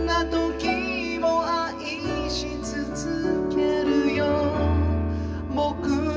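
A small band playing a song: keyboards, electric guitar and drums, with held low notes and a wavering melody line on top, in a gap between sung lines.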